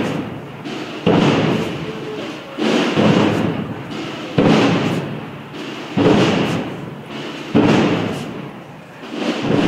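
Massed procession drums and bass drums (tambores and bombos of Bajo Aragón Holy Week) beating a slow, steady cadence, a heavy beat about every second and a half with the drums' rolling rumble dying away between beats.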